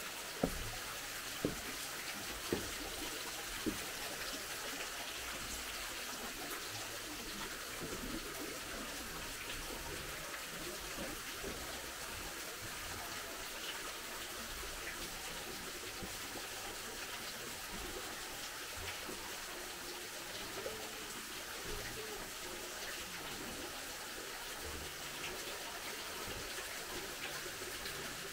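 Water running steadily, with a few short knocks in the first few seconds.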